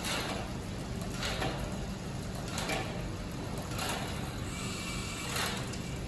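Road bike's drivetrain turned by hand in a work stand: the chain runs over the rear cassette with a rushing sweep that comes back about every second and a quarter, once per turn of the crank.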